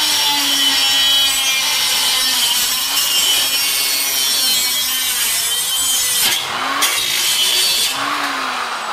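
Chicago Electric 3-inch electric cut-off tool's abrasive wheel cutting through sheet-metal roofing edge: a loud, steady, high grinding hiss over the motor's whine. The grinding breaks off briefly about six seconds in and resumes, then stops at about eight seconds as the motor spins down with a falling pitch.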